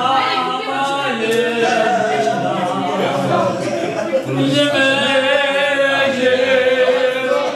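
A group of people, men among them, singing a song together without instruments, holding long notes.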